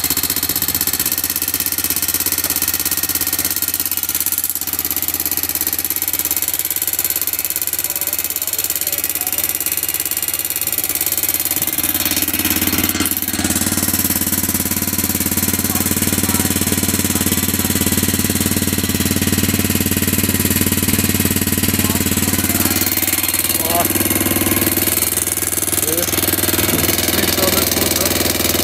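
Honda XR650L single-cylinder engine idling with a steady, loud metallic clatter from the right side of the engine, which the owner puts down to the cam chain, the camshaft or the valves.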